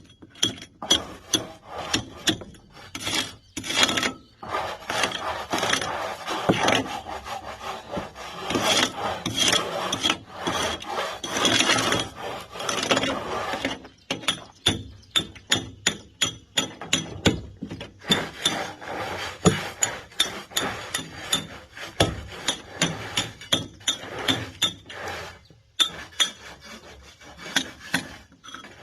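Mason's hammer striking a steel chisel to chip concrete, sharp strikes about two to three a second. From about four to fourteen seconds in, a long stretch of continuous scraping runs under the strikes.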